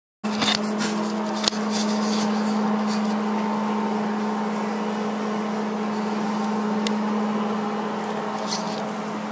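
Steady mechanical hum with a low drone, and a few light clicks and knocks, the sharpest about a second and a half in.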